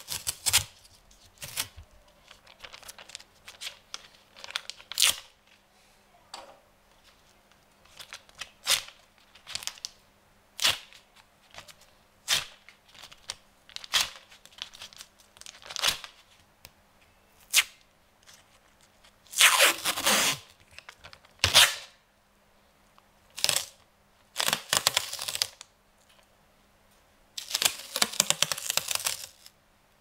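Roll of paper masking tape being pulled and torn: a string of short, sharp rips about a second apart, then three longer ripping pulls of about a second each in the last third.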